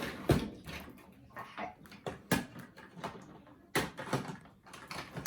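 Hand-handling noises: a few sharp clicks and knocks with faint rustling in between, as a small item is worked out of its packaging.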